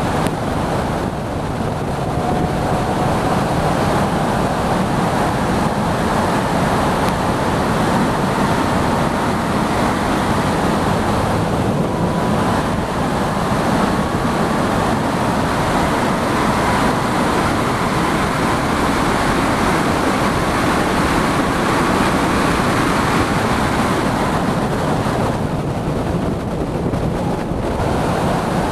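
Heavy wind rush over an open-cockpit Ariel Atom at high speed, with the engine heard underneath as a faint whine that rises slowly. Near the end the wind noise eases for a couple of seconds as the car slows, then builds again.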